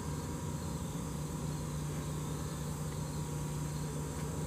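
Insects chirring steadily in summer woodland, over a constant low drone.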